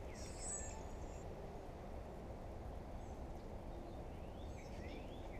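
Quiet outdoor ambience: a steady low background rumble with birds chirping, short downward-sliding calls that come a few at a time and are clearest near the end.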